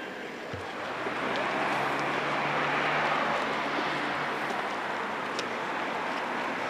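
Steady hiss of steam from a standing steam locomotive, swelling about a second in and holding.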